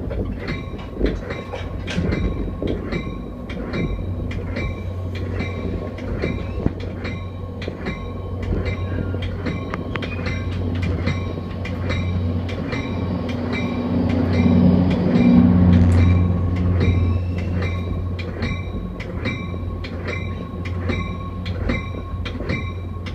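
Caltrain commuter train rolling slowly into a terminal. Its wheels click at a fairly even pace over rail joints and switches, each click ringing briefly, over a steady low hum. About two-thirds of the way through, a louder engine drone swells and fades as the train passes a parked Caltrain diesel locomotive.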